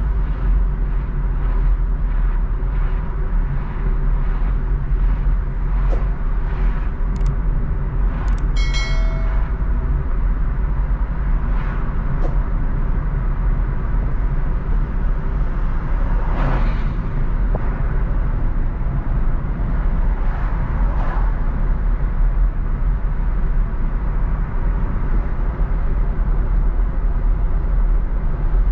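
Car driving along a city street: a steady low rumble of engine and tyre noise. About nine seconds in, a short high-pitched squeal with overtones rings for about a second, and near the middle a louder sweep of another vehicle passing.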